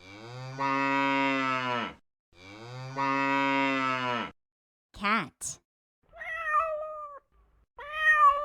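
A cow mooing twice, each moo a long, steady, low call of about two seconds, followed after the spoken word "cat" by a cat meowing twice, higher and shorter, falling slightly at the end.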